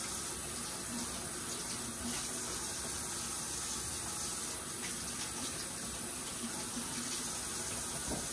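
Kitchen faucet running steadily into the sink while raw chicken pieces are rinsed under it.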